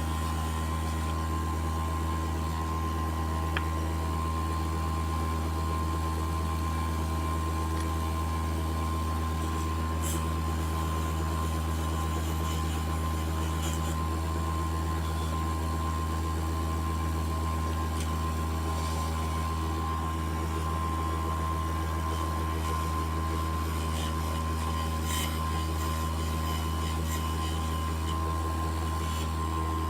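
Grinder running steadily at full speed, a constant motor hum, with a few faint brief scratchy touches as rusty brake caliper parts are held against its wheel to clean off surface rust.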